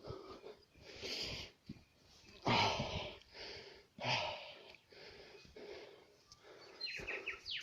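A person breathing audibly in several long, rushing breaths, the loudest about two and a half seconds in, with a short run of clicks near the end.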